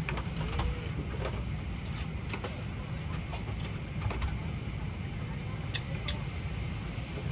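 Airliner cabin ambience while the aircraft stands near the gate after landing: a steady low rumble with scattered short clicks and knocks.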